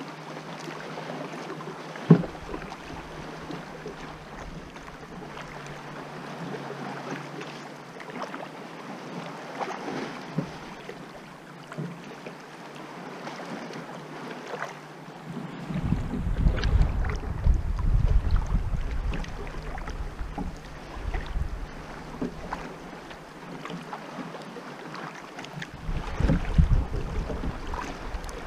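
Water splashing and lapping around a kayak as it is paddled across a rippled bay. One sharp knock about two seconds in. Gusts of wind buffet the microphone from about the middle, and again near the end.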